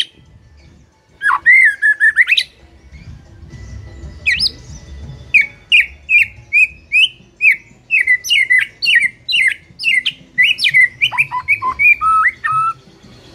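White-rumped shama singing loud whistled phrases: a short phrase, then a long run of quick repeated notes, about three a second, that drop lower near the end.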